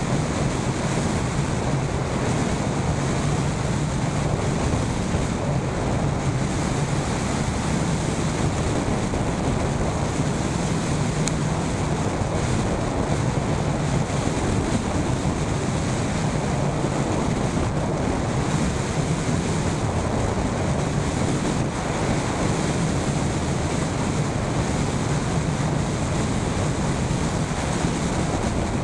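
Steady rush of airflow over the microphone of a hang glider in flight: an even, continuous noise with a low drone underneath, unchanging throughout.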